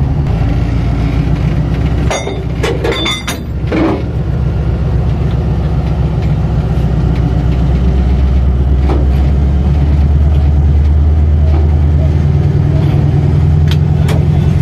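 Diesel-electric locomotive engine idling close by with a steady low drone that grows louder from about eight seconds in. A cluster of metal clanks comes around two to four seconds in, with single knocks later, as the coupler is handled.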